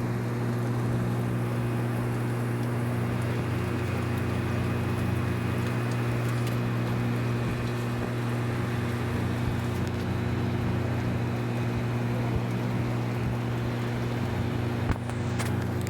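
A steady low mechanical hum with several steady tones, over an even hiss, and a single sharp click near the end.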